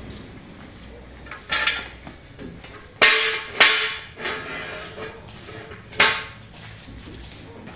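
Sharp metal-on-metal clanks from steel jack stands being set under a bare car body: four hard knocks spread over several seconds, each with a short metallic ring. The two loudest come close together about three seconds in.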